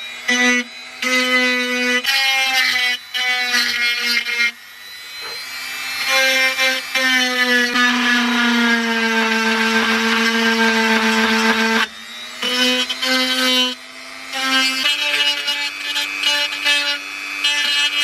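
Handheld electric rotary tool running with a steady high whine as a small bit grinds out the damaged holes in a wooden cover. The whine breaks off briefly several times, and its pitch sags a little through the longer middle stretch as the bit works into the wood.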